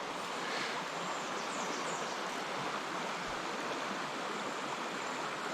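Steady rushing of a small creek's current flowing over the stream bed.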